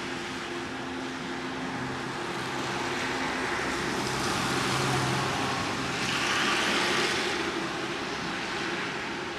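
A car passing on the street: engine hum and tyre noise swelling, peaking a few seconds in, then fading away.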